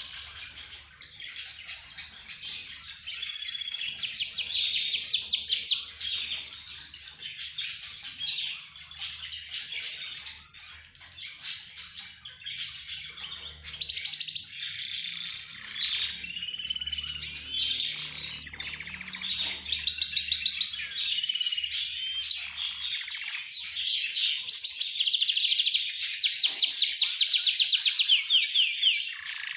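A mixed group of cage birds (budgerigars, lovebirds, zebra finches and a canary) chirping and calling over one another without pause, with fast trills that grow loudest and most continuous near the end.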